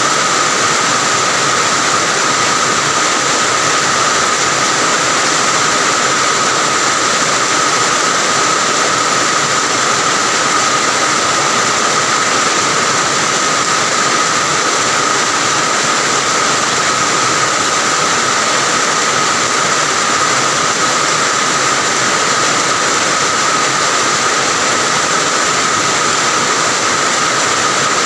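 Steady heavy rain, an even unbroken hiss with a thin steady high ring running through it.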